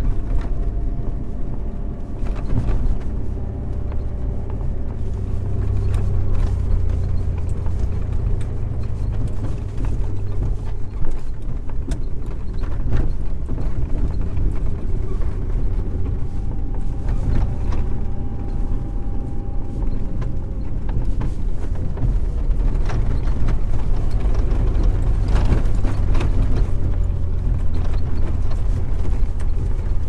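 Jeep Wrangler TJ's 4.0-litre straight-six running steadily as the Jeep drives over a rough, unmaintained trail. A low engine and driveline drone carries throughout, with scattered knocks and rattles from the suspension and body over bumps, the sharpest about eleven seconds in and again near the end.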